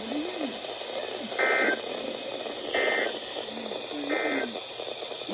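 Emergency Alert System end-of-message data bursts over NOAA Weather Radio: three short, identical warbling digital chirps about a second and a half apart, over steady radio hiss. They mark the end of the marine warning broadcast.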